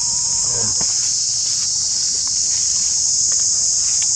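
A steady, high-pitched chorus of insects droning without a break.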